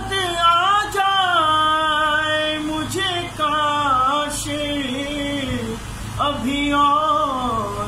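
A man singing a naat unaccompanied, holding long notes that rise and fall between short breaths.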